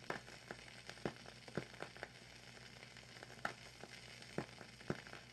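Vintage crackle effect: a faint steady hiss with scattered, irregular pops and clicks, the surface noise of an old recording.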